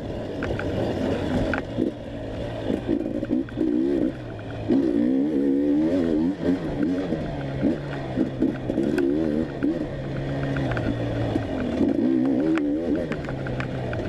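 Off-road motorcycle engine revving up and down continuously under throttle as the bike is ridden, with scattered short clicks and knocks.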